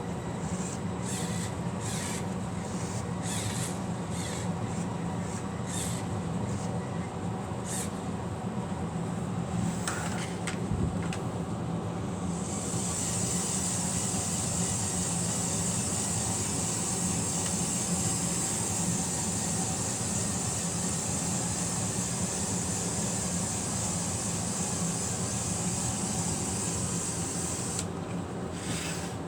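LEGO Technic Power Functions electric motors and plastic gearing running a model garbage truck's functions, a steady whirring hum. Over the first several seconds there are repeated sharp clicks, and about twelve seconds in a higher whir joins, stopping shortly before the end.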